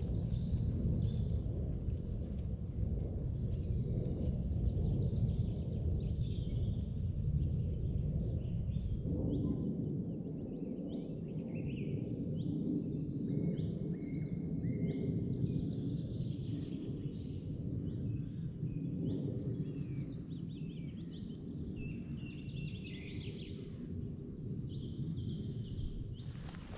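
Woodland birds singing, many short high chirps and trills, over a steady low rumble of background noise whose deepest part eases about nine seconds in.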